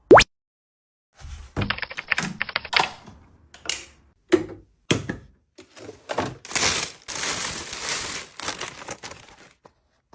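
Household supplies being handled and set in place: quick rattling clicks and knocks, then a longer stretch of rustling about six seconds in. A brief sharp rising swish comes right at the start.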